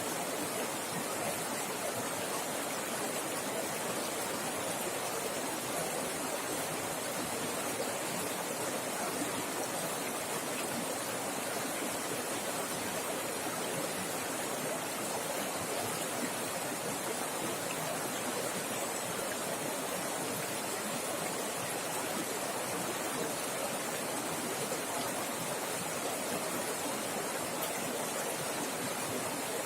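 Fast-flowing river water rushing steadily, an even splashing rush with no breaks.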